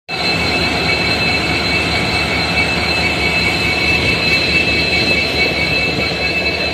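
WDP4D diesel-electric locomotive running close by: its EMD 16-cylinder two-stroke diesel engine gives a steady rumble under a steady high-pitched turbocharger whine.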